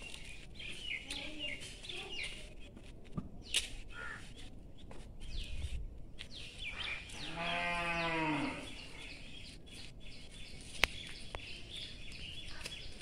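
An animal bleating once, a quavering call about a second and a half long, over faint bird chirps. A single sharp click near the end is the loudest moment.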